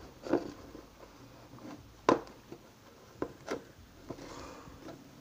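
A handful of sharp plastic clicks and knocks from a plastic microwavable mug and its snap-lock lid being handled, the locking tabs flipped and the mug tipped against the counter. The loudest click comes about two seconds in, with a quick pair of clicks about a second later.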